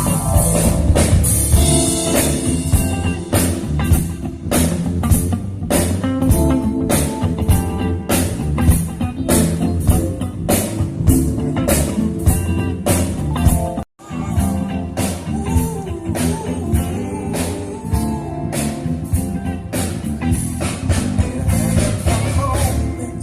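Live band playing a rock-blues groove on drum kit and guitar, with some singing. The sound cuts out for an instant about fourteen seconds in.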